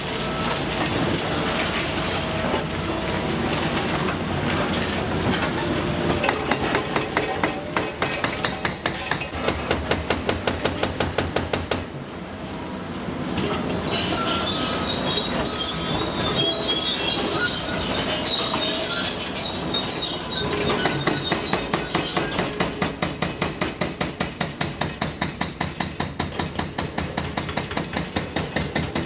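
Demolition excavator's hydraulic crusher jaws biting into a concrete bridge girder over the running machine. A fast, even knocking of about three strikes a second comes and goes and is the loudest thing heard.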